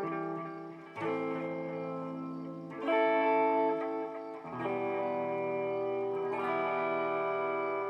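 Electric guitar chords played through a BOSS DD-8 Digital Delay pedal in Warp mode, each chord left ringing into a wash of delay repeats. Four chords are struck, roughly every two seconds.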